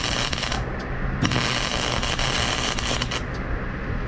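Electric arc welder crackling and hissing as a weld bead is laid on a broken rake, in bursts: one stops about half a second in, another runs from just after a second to about three seconds, and a third starts right at the end. The short runs bind the repair in to strengthen it.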